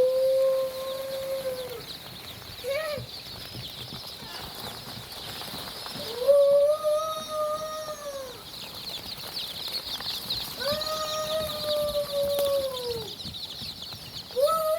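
Chickens at a farm, with a rooster crowing four times in long, arched calls and a short call in between, over a steady high-pitched chirping.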